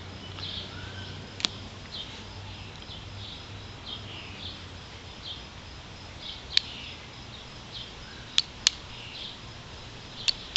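A carbon steel knife blade struck against a piece of flint to throw sparks, giving five sharp clicks at uneven intervals, two of them close together about eight seconds in. Birds chirp faintly in the background.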